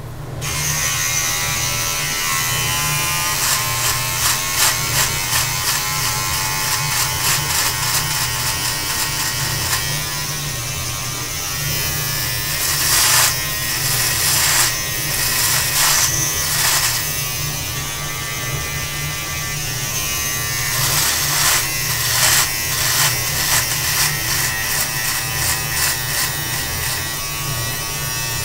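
Electric beard trimmer switched on just after the start and running with a steady buzz, with brief rasping bursts as its blades cut through a long, full beard.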